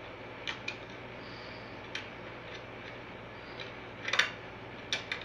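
Plastic DVD case and discs being handled by hand: a few sharp plastic clicks and taps, the loudest about four seconds in, over a steady background hiss.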